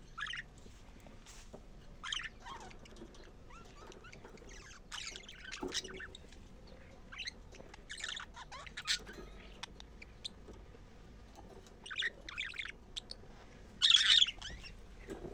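Budgerigars chattering in short, scattered chirps, with the loudest burst near the end.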